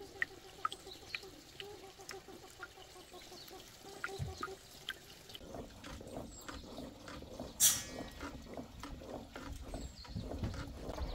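Small drips and trickling water with a faint steady hum, then, from about halfway, a pot bubbling over a crackling wood fire as it is stirred with a wooden spoon. One sharp click about two-thirds of the way through.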